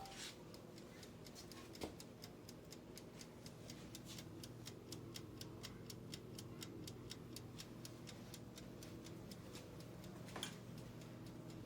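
Faint, fast, even mechanical ticking, several ticks a second, over a low steady hum, with one louder click about two seconds in and another near the end.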